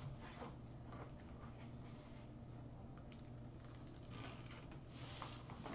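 Faint rustling and crinkling as a diamond painting canvas and its plastic cover film are handled and smoothed flat on a table, a few soft scuffs scattered through, most around the last couple of seconds, over a low steady hum.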